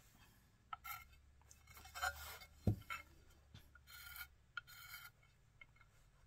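Underglaze pencil drawing on dampened bisqueware: short scratchy strokes of the pencil tip across the porous fired clay, several in a row. A single dull knock a little under three seconds in is the loudest sound.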